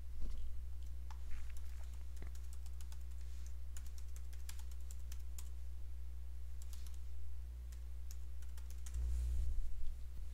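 Typing on a computer keyboard: a run of irregular key clicks lasting several seconds, which stops near the end. A steady low electrical hum runs underneath.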